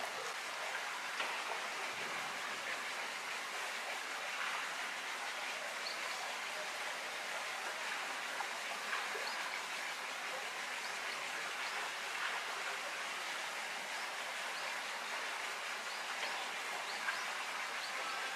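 Steady hiss, with faint knocks every few seconds from batting practice, a bat hitting pitched balls in a netted cage.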